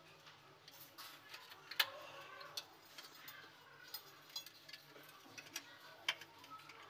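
Faint, scattered clicks and taps of plastic parts as a modular lamp holder is handled and pressed and turned onto its square cover plate.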